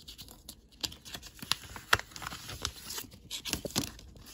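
Clear plastic sleeve crinkling and rustling as a metal die set on a magnetic sheet is handled, with scattered sharp clicks, the loudest about two seconds in.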